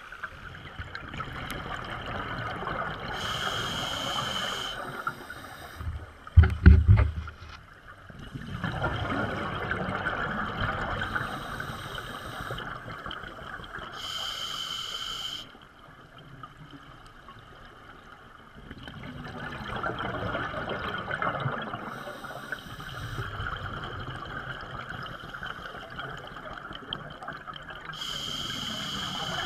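Scuba divers' regulator exhaust bubbles rushing and gurgling underwater in long exhalations of several seconds, with quieter pauses for each breath in. About six and a half seconds in there is one loud low thump.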